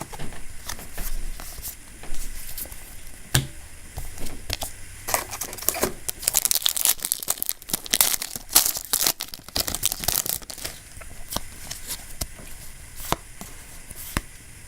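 Foil Yu-Gi-Oh booster pack wrapper being torn open and crinkled, with a long stretch of tearing and rustling about halfway through and scattered small clicks throughout.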